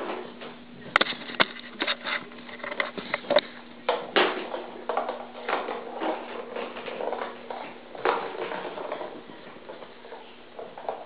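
Plastic ball rolling and clattering inside a round plastic track cat toy as a kitten bats at it: irregular clicks, knocks and rattles, two sharp clicks about a second in. A faint steady hum runs underneath.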